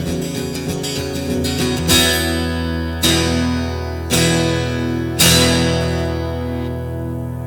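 Acoustic guitar strummed quickly, then four single chords struck about a second apart, each left to ring out and fade: the closing chords of the song.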